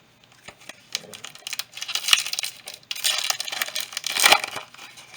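Crinkling and crackling of a foil Yu-Gi-Oh booster pack being handled and torn open: a dense run of small crackles, loudest about two and four seconds in.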